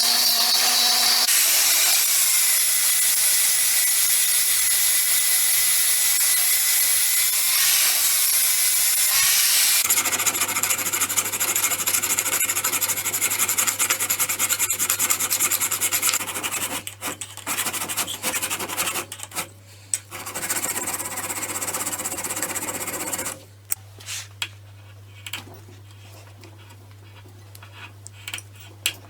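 Homemade random orbital sanding attachment, driven by a power tool, sanding steadily with a faint motor whine. About ten seconds in, a low steady hum joins. The sanding turns intermittent and stops a few seconds before the end, leaving the hum and a few light clicks.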